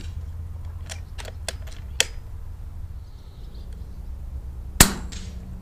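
An FX PCP air rifle firing one shot about four seconds in: a single sharp crack with a short ring after it. Earlier, a few quick light clicks, one of them louder, as the action is cycled to chamber the next pellet.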